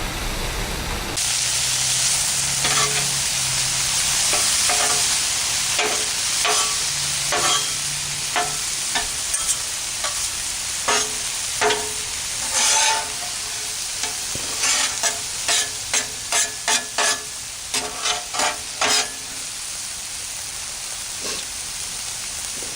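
Vegetables sizzling and steaming on a hot Blackstone flat-top griddle after a splash of water, while a metal spatula clinks and scrapes against the steel as they are stirred. The clinks come in quick runs through most of the stretch, then stop, leaving the sizzle.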